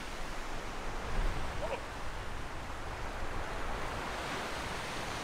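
Steady surf washing up on a sandy beach, with some wind noise on the microphone.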